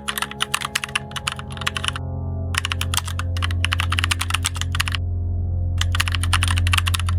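Rapid keyboard typing clicks in three runs, breaking off briefly about two seconds in and again about five seconds in, over a low steady drone that slowly swells.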